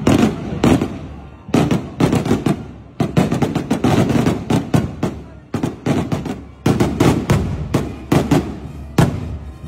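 Festival fireworks: a long, irregular volley of sharp firecracker bangs, some coming in quick runs, one of the loudest about nine seconds in.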